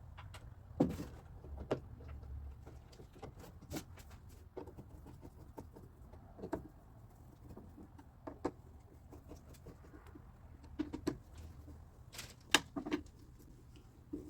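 Scattered metallic clicks, taps and light knocks as a car door's lock mechanism and linkage rods are fitted and bolted back inside the door, over a low steady hum. The sharpest clicks come about a second in and again near the end.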